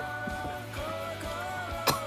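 Background pop music with a singing voice over a steady low beat, with one sharp click near the end.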